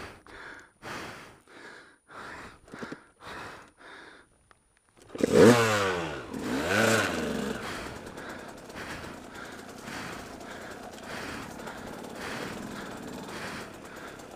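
Rider breathing hard, then about five seconds in the dirt bike's engine starts, is revved twice and settles into steady running.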